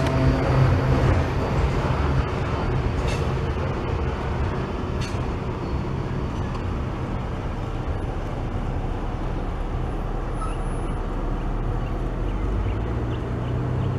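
Coal hopper cars of a freight train rolling over a grade crossing, a steady rumble of wheels on rail that fades as the end of the train passes, with two sharp clanks a couple of seconds in. Near the end a car's engine approaches.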